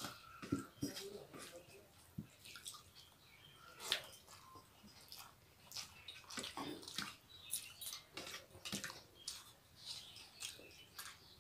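Close eating sounds: chewing, wet lip smacks and fingers squishing rice with curry on steel plates, heard as irregular soft clicks and smacks.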